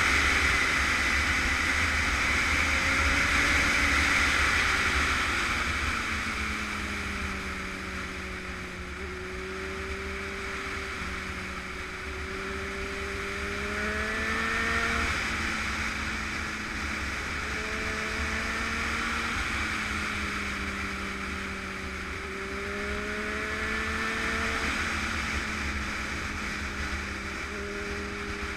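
Motorcycle engine heard from on board while riding, its note rising and falling as the throttle is opened and eased. A heavy rush of wind on the microphone runs under it.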